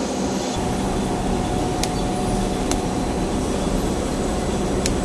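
Industrial machinery running with a steady mechanical hum and noise; its low rumble comes up about half a second in, and a few faint ticks sound over it.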